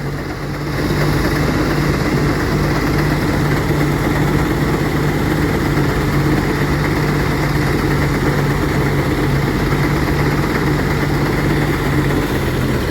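Engine-driven rice threshing machine running steadily with a constant hum, getting a little louder about a second in.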